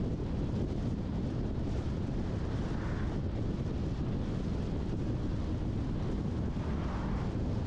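A car driving along a road: a steady low rumble of tyres and engine.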